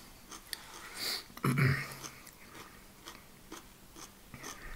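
Quiet chewing and mouth sounds of a person eating close to the microphone, with small scattered clicks and a short low hum from the throat about a second and a half in.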